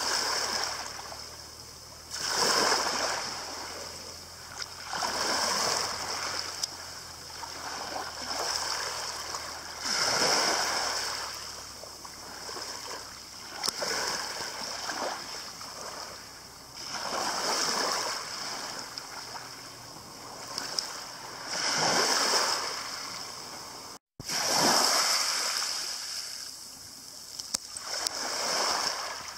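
Small sea waves breaking and washing up over a shingle beach, one surge every three to four seconds.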